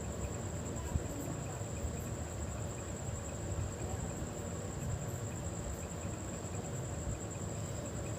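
A steady high-pitched insect trill over a low background rumble.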